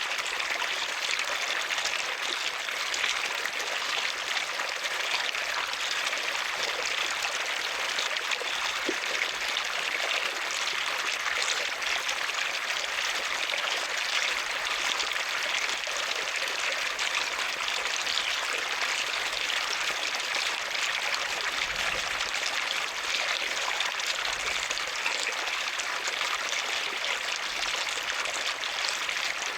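Running water flowing steadily, a constant even rush with no breaks.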